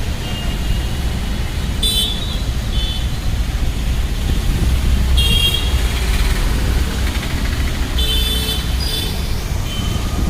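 Street traffic: a steady low rumble of vehicles, with short horn toots about two, five and eight seconds in.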